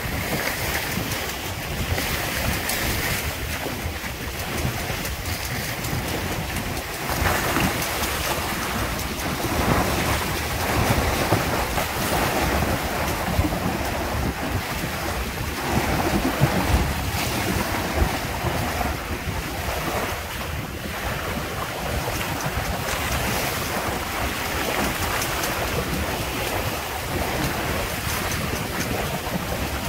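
Wind buffeting the microphone over the rush and splash of choppy water along the hulls of a Windrider 17 trimaran under sail, in uneven gusts.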